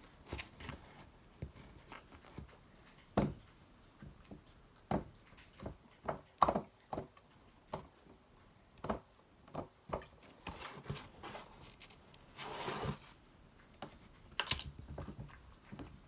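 Slime being kneaded and stretched by hand, with irregular sticky pops and clicks and a brief rustle near the end.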